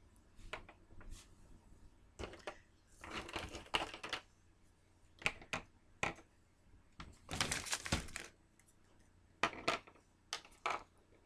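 Plastic Halloween chain links clicking and clattering as they are handled and set down on a tabletop. The clicks come in scattered clusters with a few sharper knocks.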